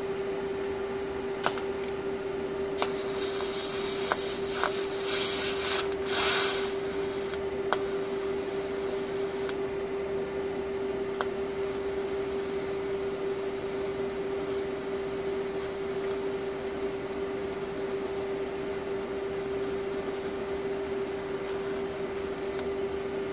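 TIG arc from an AHP Alpha-TIG 200x welder on steel tubing. The arc strikes with a few sharp clicks and hisses in short spells early on. From about eleven seconds it hisses steadily and then cuts off sharply near the end. A constant hum runs underneath throughout.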